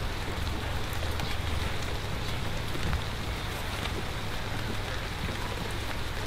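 Steady rain falling and pattering on surfaces, with many small drop ticks and a steady low rumble underneath.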